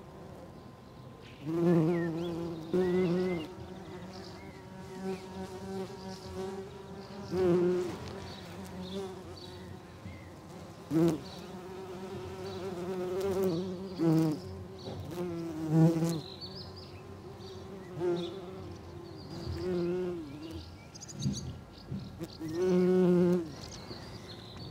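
Bumblebees buzzing in flight as they hover and fly close past the flowers. Their wing hum swells, bends in pitch and fades again on many close passes, over a steady background hum of other bees.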